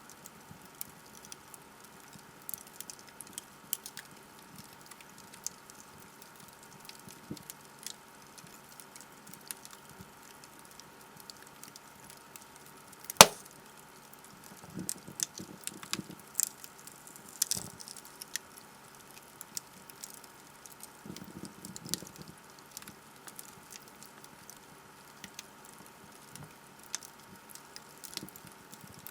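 Logs burning in a fireplace, crackling with scattered small snaps. About halfway through comes one loud, sharp pop, followed by brief flurries of crackling.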